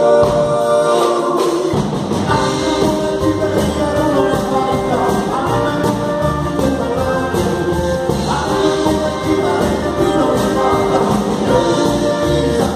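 Live band playing a song: a man singing over acoustic guitar, electric guitar and upright double bass. The low bass end comes in about two seconds in.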